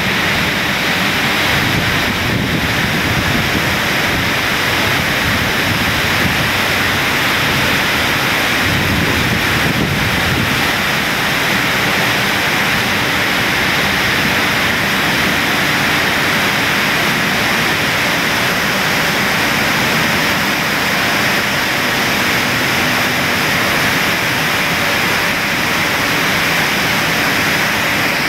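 Steady din of a running chana dal mill plant: electric motors, blowers and grain-handling machines running together as one even roar. It does not change in level.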